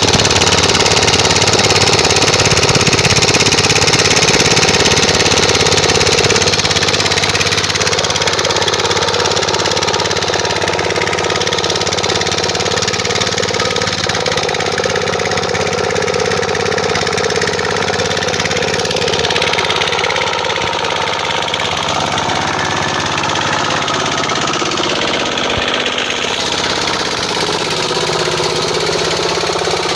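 F170 4 hp single-cylinder air-cooled diesel engine running steadily.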